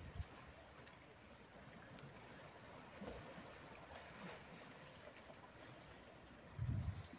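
Faint, gentle sea water lapping and washing among the rocks of a stone breakwater, with a brief low rumble near the end.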